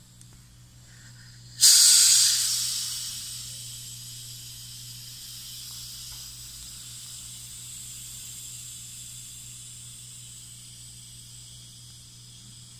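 Pressurised CO2 hissing out of a homemade yeast-and-sugar CO2 bottle as its cap is loosened. A sudden loud hiss starts about a second and a half in, eases over a couple of seconds, then goes on as a steady hiss that slowly fades. The pressure built up because the fermenting mix clogged the hose and diffuser.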